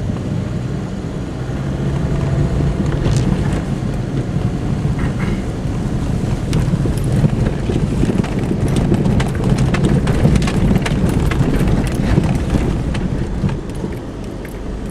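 A car driving on snowy roads, heard from inside the cabin: a steady low engine and road rumble, with many small clicks and crackles scattered through it.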